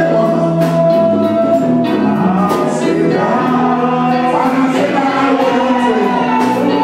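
Gospel music: a choir singing sustained notes over instrumental accompaniment.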